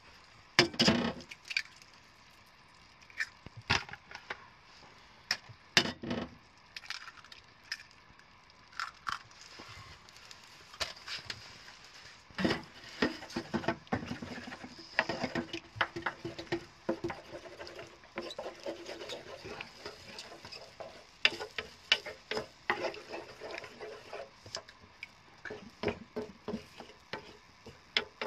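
Wooden spoon knocking and scraping in an iron skillet as frying eggs are broken up and stirred, with a faint sizzle of frying underneath. The sharp knocks come irregularly and grow busier in the second half.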